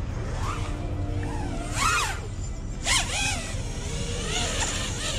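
FPV racing quadcopter's brushless motors (T-Motor F40Pro V3 2600kv) whining as the throttle is worked: two strong rev-ups and drops about two and three seconds in, with smaller ones between, over background music.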